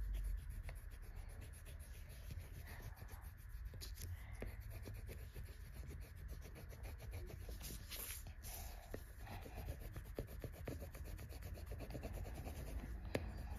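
Coloured pencil scribbling back and forth on paper in a fast, steady run of faint scratchy strokes, with a few louder strokes about eight seconds in.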